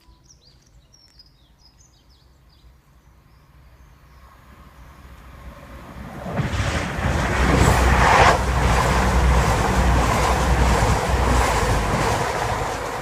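A train approaching and passing at speed: a noise that grows from about four seconds in and is loud from about six and a half seconds, with a low rumble of wheels on the rails. A bird chirps a few times at the start.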